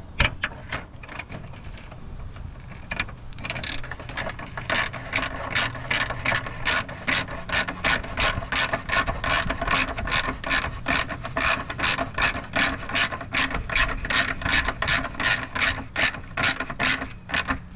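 Ratchet wrench clicking as a horn mounting bolt is tightened down: faint quick clicks at first, then steady, louder clicking at about three a second.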